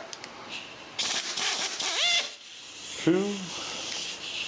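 Air gun running a rocker shaft bolt out of a Buick 455 cylinder head: a loud burst of air hiss and rattle about a second in, lasting just over a second and ending in a rising whine.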